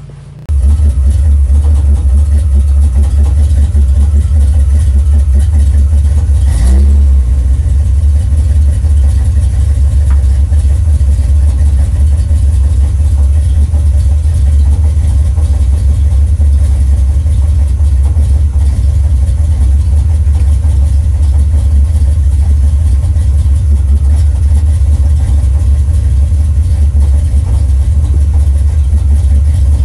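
Car engine idling steadily: a loud, deep rumble heard from inside the cabin, with a short rise in pitch about seven seconds in.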